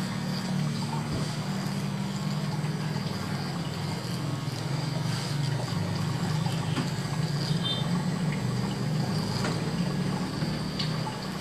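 Small electric motor of a handheld grooming device buzzing steadily as it is worked over a customer's jaw and upper lip, with a few faint clicks.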